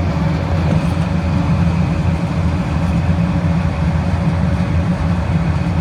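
Refrigeration equipment for a walk-in cooler running: a loud, steady low machine hum with no change.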